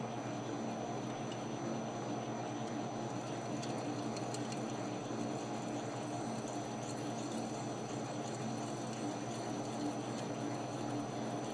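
Metal lathe running steadily while a twist drill bores into a 1977 Suzuki RM125 crankshaft half, with faint scattered ticks of cutting chips.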